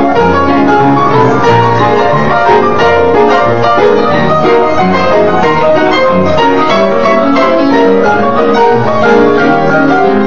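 Ragtime played on an upright piano: a steady stream of notes with a bass line moving under chords and melody, without a break.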